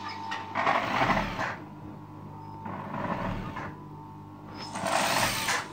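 Industrial sewing machine stitching a trim strip onto a knit hood in three short runs of about a second each, the motor stopping briefly between runs while the fabric is repositioned.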